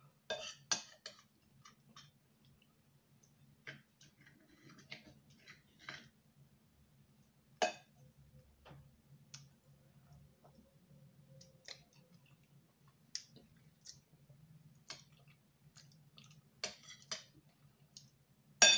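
Close-miked eating sounds: irregular mouth clicks and chewing, with a few sharper clicks like a utensil against a plate or bowl, over a steady low hum.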